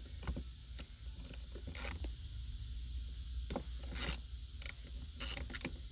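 Ratchet wrench with a 10 mm deep socket loosening a shifter nut, giving short, irregular clicks about once or twice a second as it is worked back and forth.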